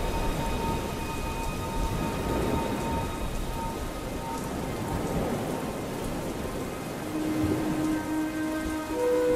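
Steady rain ambience with low thunder rumbles, under faint held music notes. About seven seconds in, new held lower notes come in.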